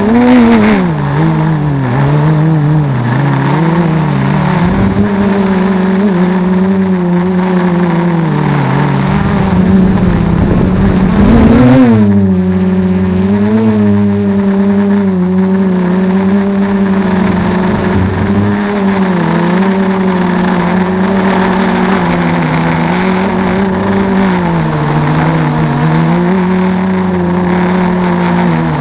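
Armattan Rev2 FPV quadcopter's brushless motors and propellers whining in flight, picked up by the camera on board. The pitch rises and falls continually with the throttle, with a quick sharp rise and drop about twelve seconds in, over a steady rushing hiss.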